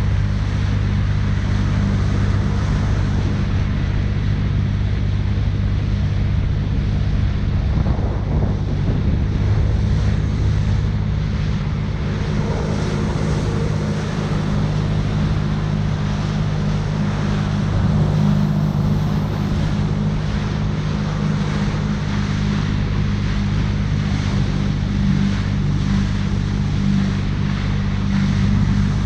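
Jet ski engine running steadily under way, a low even drone, with water and wind noise rushing over the microphone.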